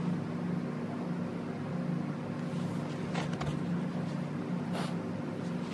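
Steady low machinery hum, like a building's ventilation or refrigeration plant, with a few faint clicks from movement about halfway through.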